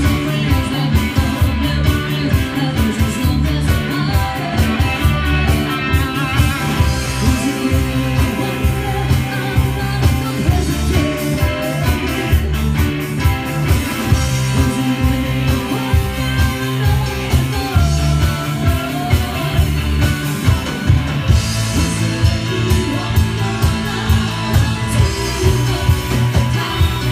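Live rock band playing: electric guitars, keyboard and drums keeping a steady beat, with a singer.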